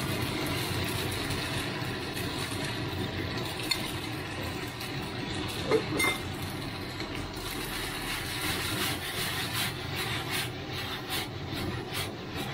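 Pasta and vegetables frying in a pan over a gas flame, a steady sizzle, with a few sharp clinks of a spoon against the pan or tub about four and six seconds in. Near the end comes more clattering as the pan is shaken and the pasta tossed.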